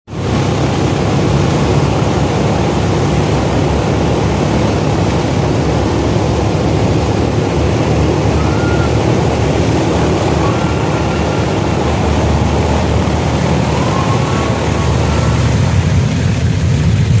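Boeing B-29 Superfortress's four Wright R-3350 radial engines running loud and steady as the bomber taxis past.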